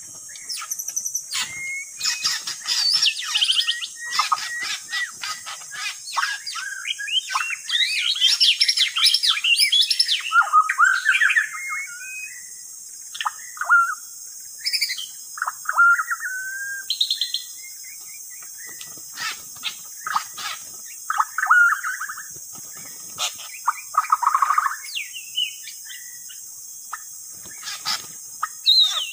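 White-rumped shama song used as a lure call: a varied run of rich whistled phrases, rapid chirps and harsh notes coming in bursts with short pauses, busiest in the first half.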